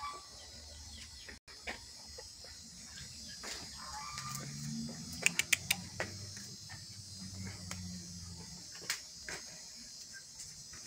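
Farmyard ambience: a steady high chirring of insects, with a low murmur in the middle and a quick run of sharp clicks about five seconds in.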